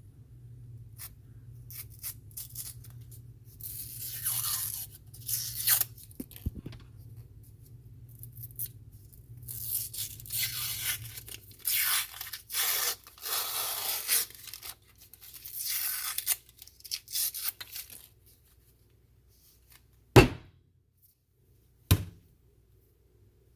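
Paper and cardboard wrapper of a tube of refrigerated bread dough being picked at, peeled and torn in repeated rustling bursts while she tries to get it open. Near the end come two sharp knocks about two seconds apart.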